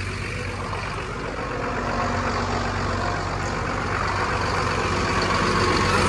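Crane lorry's diesel engine idling steadily.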